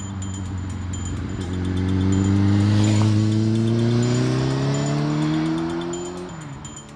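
Motorcycle engine accelerating hard, its pitch climbing steadily for several seconds and then dropping sharply near the end. The engine swells loudest about three seconds in and then fades, with music playing faintly underneath.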